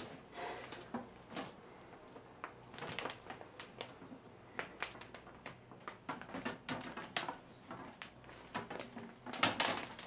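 Soft copper tubing being bent by hand around a wooden beam, the coils clicking and knocking irregularly against the wood and the floor, louder near the end.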